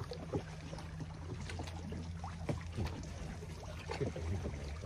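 Boat motor running with a steady low hum, with a few faint ticks over it.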